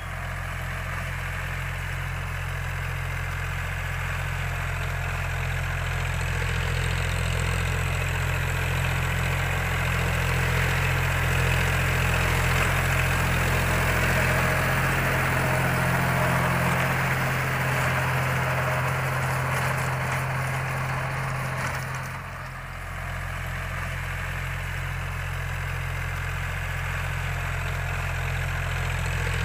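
Diesel engine of a John Deere utility tractor running steadily under load as it pulls a rotary tiller through dry soil. The sound dips briefly about three-quarters of the way through, then picks up again.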